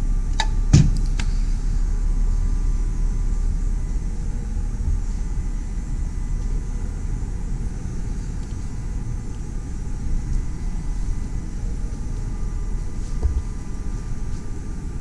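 A car's fuel filler flap pushed shut, a few sharp clicks with one louder snap about a second in. After that there is only a steady low rumble.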